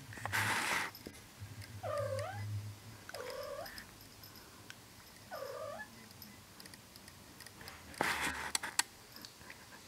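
A domestic cat giving three short calls, each dipping then rising in pitch, as it watches a moth it wants to catch. Two brief bursts of rustling noise, one near the start and one about eight seconds in, are louder than the calls.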